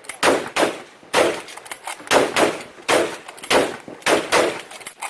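Rapid volley of rifle shots from several bolt-action rifles, an 8mm Mauser and .303 Lee-Enfield Mk IIIs, firing together. About a dozen sharp cracks fall roughly two a second, irregular and sometimes overlapping, each with a short echoing tail.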